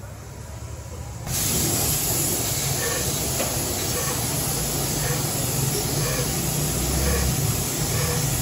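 Gravity-feed air spray gun spraying paint: a steady hiss of compressed air that starts abruptly about a second in, with a low rumble underneath.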